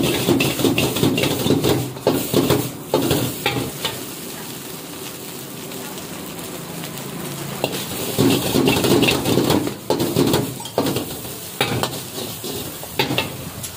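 A steel ladle scrapes and tosses egg fried rice around a large iron wok while the rice sizzles. The busy stirring eases to a quieter steady sizzle in the middle, picks up again, and ends with a few sharp clinks of the ladle against the wok.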